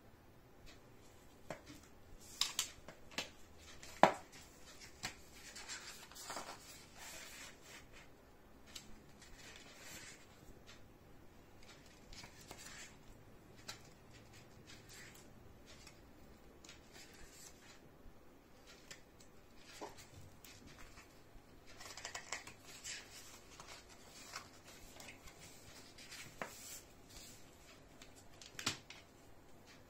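Quiet rustling and rubbing of a cardboard CD digipak and its paper booklet being handled and leafed through, with scattered clicks and taps, the sharpest about four seconds in. Near the end a CD is pressed off its plastic tray hub with a click.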